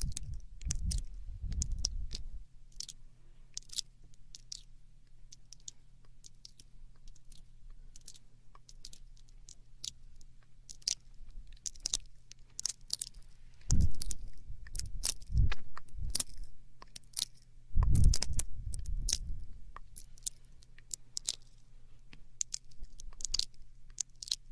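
Close-miked, wet mouth sounds: a run of small tongue and lip clicks and smacks, scattered throughout. A few louder, low, muffled thumps stand out about halfway through and again a little later.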